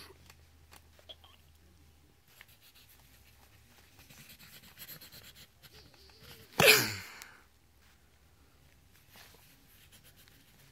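Faint scratching of a pencil drawing on lined paper. About two-thirds of the way through, one short, loud burst of breath or voice from a person.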